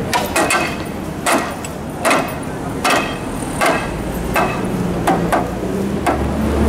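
Hammer blows on iron rings that bind wooden poles to a float's central mast: a steady series of sharp strikes, about one every three-quarters of a second, some in quick pairs.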